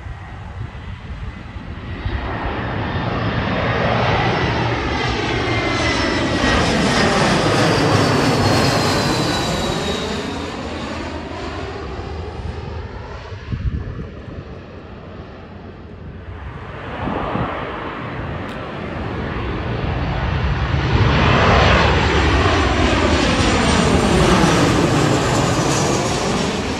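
Jet airliners on landing approach passing low overhead, two passes: each swells to a loud jet roar and fades. During the first a high engine whine falls in pitch as the plane goes by.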